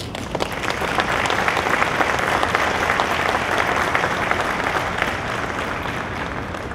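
Audience applauding, many hands clapping, swelling within the first second and tapering off near the end.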